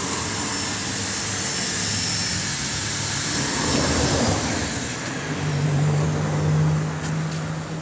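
Motor vehicle engines running in street traffic, with a steady low engine hum setting in about halfway through and a few light clicks near the end.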